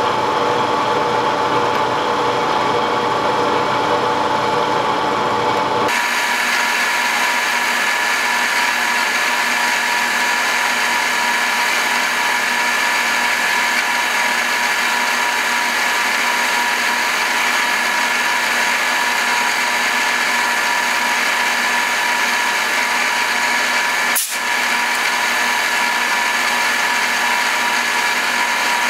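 Bridgeport milling machine running steadily with a prominent whine, its end mill cutting a fuller groove into a Bowie knife blade as the table feeds along. The tone of the whine changes abruptly about six seconds in, and there is a brief break about 24 seconds in.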